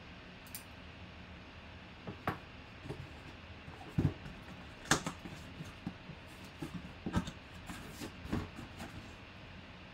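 Cardboard box being handled and opened by hand: scattered knocks, taps and flap scrapes. A low thump comes about four seconds in and a sharp click about a second later.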